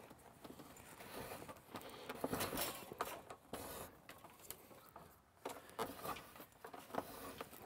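Faint rustling and scraping of a root lacing being drawn through an awl hole in birchbark and pulled tight over the wooden gunwale, with small irregular clicks and scrapes from the hands.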